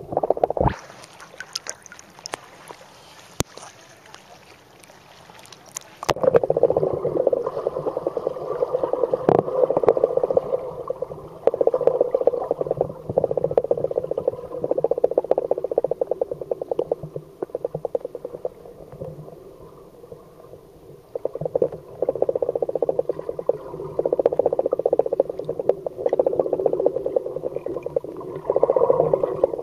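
Muffled underwater noise picked up by a submerged camera. It is quieter and hissy with a few sharp clicks at first, then about six seconds in it turns to loud crackling rumble that comes in surges of a few seconds each.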